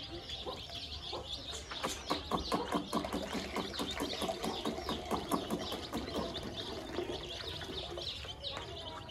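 A crowd of baby chicks peeping: many short, falling peeps overlapping continuously. A rapid patter of sharp clicks runs through the middle of it.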